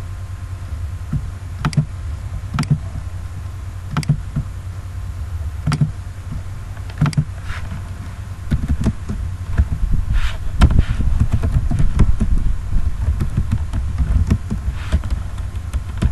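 Computer keyboard typing and mouse clicks, a few separate clicks at first and then a quicker run of keystrokes in the second half, over a steady low hum.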